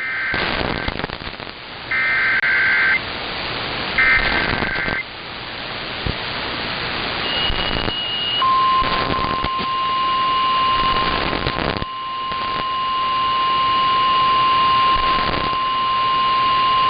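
Emergency Alert System activation on NOAA Weather Radio, received through hissing static. It starts with three one-second bursts of warbling SAME header data about a second apart. A few seconds later comes the steady 1050 Hz warning alarm tone, which holds to the end and announces a tornado warning.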